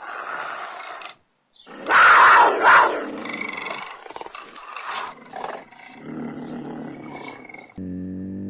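Puma calling in a run of harsh, raspy snarls, with a short pause about a second in and the loudest calls about two seconds in. Near the end a deeper, pitched growl begins.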